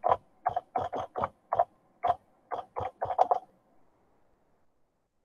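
Typing on a computer keyboard: a quick, irregular run of key clicks that stops about three and a half seconds in.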